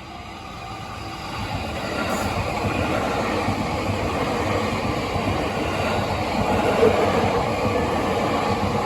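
Train on the Tohoku Main Line passing a level crossing. The rumble of wheels on rail grows louder over the first couple of seconds as it arrives, then holds steady as the cars go by.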